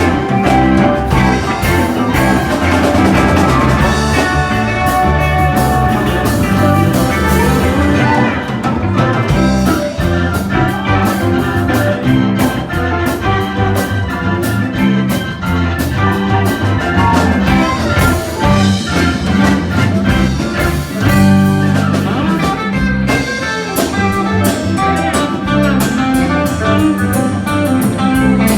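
A band playing a blues-rock tune on guitar and drum kit.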